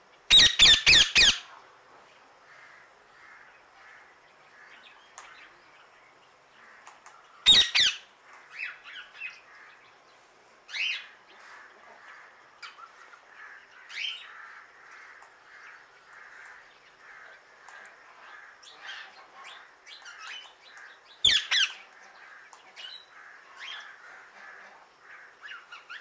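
Indian ringneck parakeet calling in loud, harsh squawks: a rapid run of about five right at the start, another burst about seven seconds in and again about twenty-one seconds in, with shorter calls between. Fainter chirping of other birds goes on underneath.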